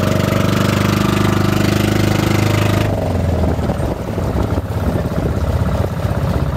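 Outrigger boat's engine running steadily with a fast, even firing rhythm. About three seconds in the sound turns duller and less even, with water rushing along the hull.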